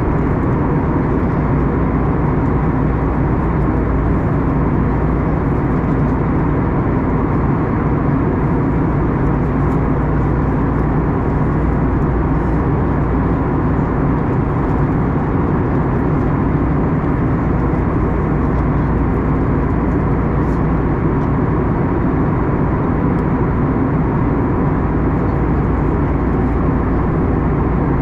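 Steady engine drone and rushing air inside the passenger cabin of an Airbus A321neo airliner, a deep, even rumble with no breaks.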